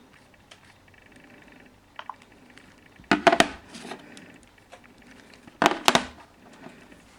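Two bursts of loud knocks and clatter, about three and six seconds in, from the smartphones being handled. Under them runs a faint, short buzz that repeats every couple of seconds.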